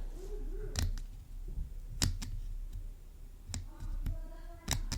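Brake dial of a Nako Flight Feather Cormorant FF01 BFS baitcasting reel being turned to its maximum setting, giving a handful of sharp, irregularly spaced clicks.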